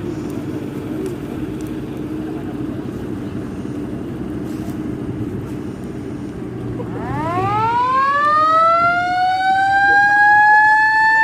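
A steady low background rumble, then about seven seconds in a siren starts up, rising in pitch and loudness before settling into a held, steady wail.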